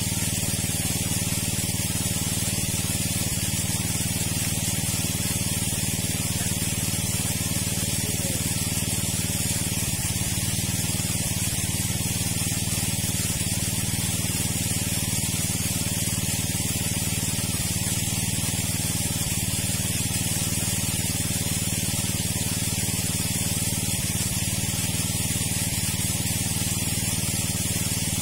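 Motor-driven water pump running steadily, with a continuous hiss of pumped water.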